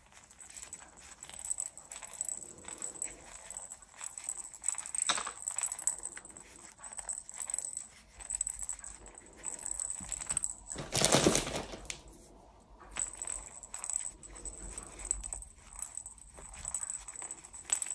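Stuffing being packed by hand into a crocheted head around a plastic rattle insert: soft rustling and scattered small clicks, with the rattle's beads clinking. One brief louder rattle comes about eleven seconds in.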